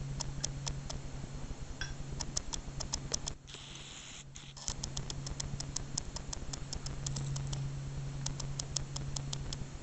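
A run of short, sharp high-pitched clicks, several a second and unevenly spaced, over a steady low electrical hum; the clicks pause briefly about three seconds in.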